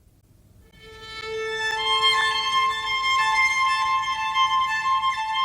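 Instrumental music with long held notes, fading in over the first second.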